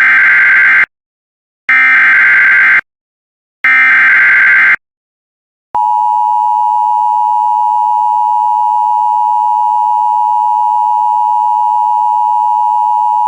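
Emergency Alert System SAME header: three short bursts of warbling digital data tones about a second apart, followed by the EAS attention signal, a loud steady tone that starts about six seconds in and holds. This sequence is the start of a broadcast emergency alert.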